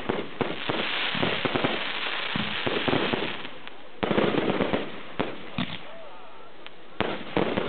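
Aerial fireworks bursting in rapid succession, a dense run of bangs and crackling. There are short lulls a little under four seconds in and again from about six seconds, before a new volley near the end.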